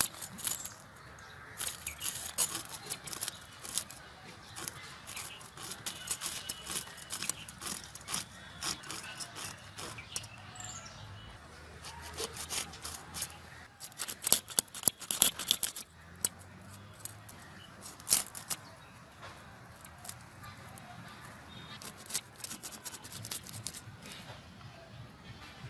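Climbing perch being scaled and cut against an upright boti blade: the scales and rough skin scraping on the metal edge in runs of sharp rasping clicks, loudest around two-thirds of the way through.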